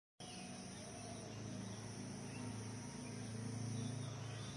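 Faint, steady insect drone with high thin tones, over a low steady hum that swells slightly near the end.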